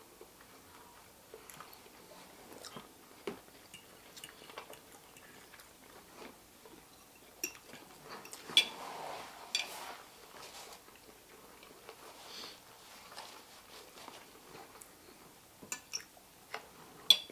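Two people eating a shrimp and fish dinner: chewing and mouth sounds, with scattered soft clicks and taps of forks on plates and a few sharper clicks.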